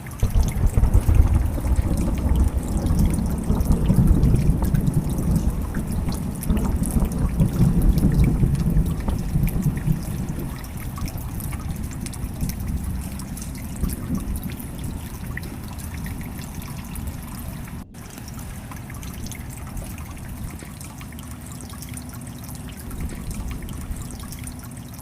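Storm noise: heavy rain pouring and wind rumbling on the microphone, loudest in the first half and easing later, with a sudden brief break about 18 seconds in.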